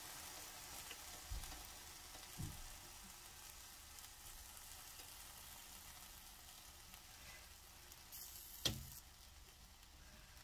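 Faint sizzling of a millet dosa cooking on a hot cast-iron tawa, with a spoon scraping softly as chutney is spread over it. A single sharp tap near the end.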